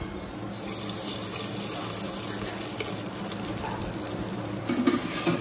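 Cooking oil poured from a steel ladle into a heated clay handi, hissing steadily with fine crackles from about half a second in.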